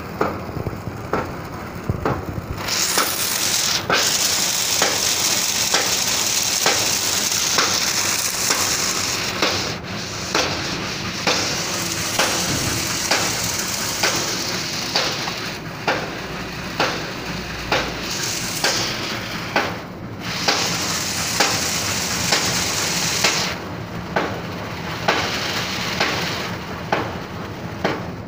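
Paper bag making machine with window-film unit running: a sharp knock about once a second, one per machine cycle, over a steady mechanical hum. A loud hiss comes and goes in stretches of several seconds.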